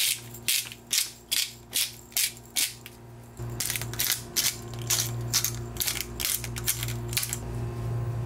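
Salt and pepper mills being twisted over raw T-bone steaks: a run of short ratcheting grinds, about two or three a second, with a short pause about three seconds in. A steady low hum runs underneath.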